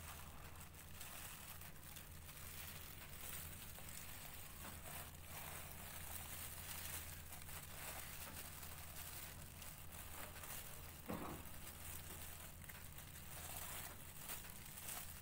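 Plastic gloves and tissue paper crinkling and rustling faintly as they are handled, over a low steady hum, with one brief, somewhat louder sound a little past two-thirds of the way in.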